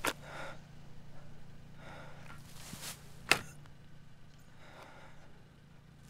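A woman breathing in a few soft, shaky breaths a second or two apart, over a steady low hum. A sharp click comes right at the start and a louder one about three seconds in.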